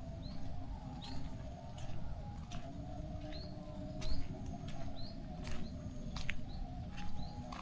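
A small bird repeating a short, high chirp with an upward hook about once a second. Scattered sharp ticks and a steady low rumble run underneath.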